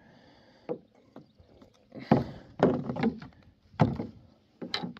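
Irregular knocks and scuffs against a plastic fishing kayak's hull and gear while a hooked pike is fought up from the weeds beside it. There are about half a dozen, the loudest two a little after two seconds and just before four seconds.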